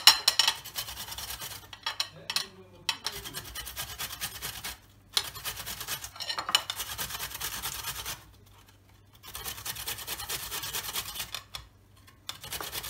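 Peeled cucumber grated on a flat stainless-steel hand grater over a plate: quick wet rasping strokes in steady runs, breaking off briefly about five, eight and eleven seconds in.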